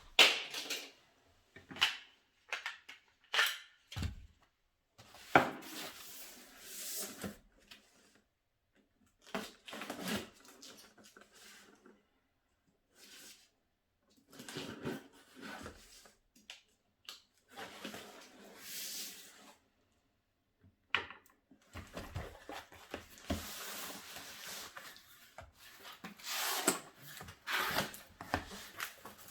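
Unpacking and assembly handling noises from a plastic aerobic step: scattered knocks and clicks with stretches of rustling, and short pauses in between.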